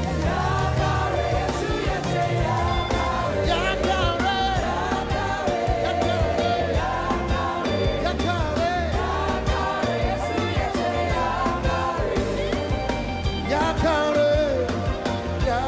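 Live gospel praise-break music: a full band with a steady fast drum beat and bass, and a voice singing over it.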